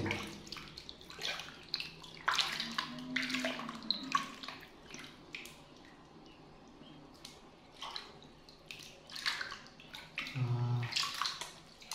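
Water splashing and sloshing in a metal washbasin as hands scoop and rub it over a bathing baby monkey, in short irregular splashes. A brief low voice sounds near the end.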